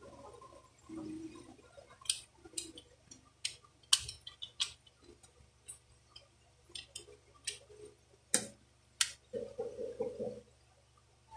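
Parts of a Daisy Power Line 1200 air pistol clicking and tapping together as the slide is fitted back onto the frame during reassembly: a run of sharp, irregular clicks.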